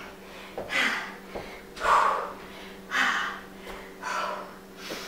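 A woman breathing hard from exertion: loud, noisy breaths in and out about once a second.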